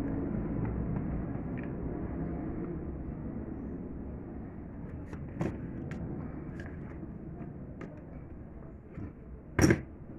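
Arge Max 60 electric fan's motor humming low and steadily, slowly fading, with a few light clicks in the second half and one sharp knock near the end.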